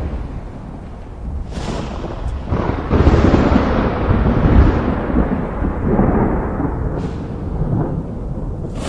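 Thunder: a sharp crack about a second and a half in, then another that swells into a long, heavy rolling rumble loudest in the middle and slowly fading, with a fresh crack right at the end. Steady rain hisses underneath.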